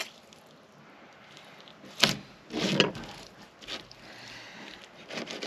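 Fish-cleaning sounds on a plastic cleaning board: a sharp knock about two seconds in, then a short wet rustle and a few lighter knocks and scrapes as a fish fillet and knife are handled.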